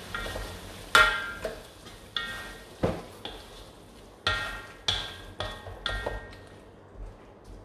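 Wooden spatula stirring prawns in a thick sauce in a metal wok: about ten scrapes and knocks against the pan, each leaving the wok ringing briefly.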